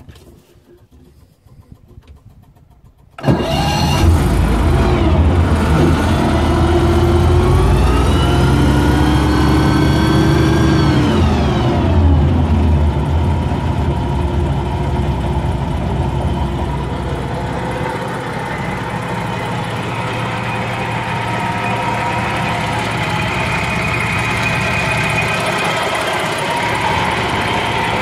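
FV101 Scorpion armoured vehicle's engine starting: it catches suddenly about three seconds in, is revved up and held for a few seconds, then drops back to a steady idle near 1,000 rpm.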